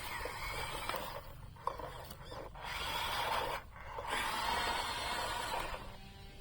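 Rasping, scraping noise in several stretches broken by short gaps, with one sharp click about a second and a half in.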